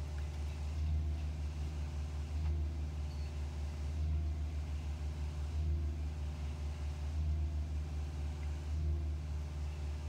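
Concrete pump engine running with a steady low drone that swells about every second and a half as concrete is pushed through the hose.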